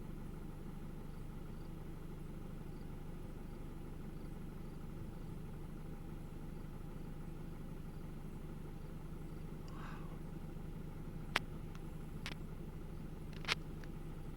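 A steady low mechanical hum, like an idling engine, with three sharp clicks near the end.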